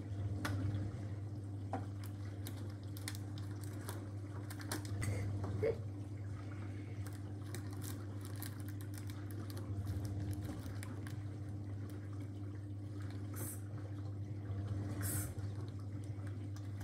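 A cat rummaging with its head inside a metal sweet tin full of wrapped sweets: scattered crinkles of wrappers and light clicks and taps against the tin, over a steady low hum.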